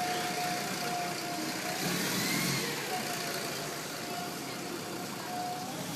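Busy city street traffic with a motor vehicle's engine running. A thin steady whine sounds over it twice.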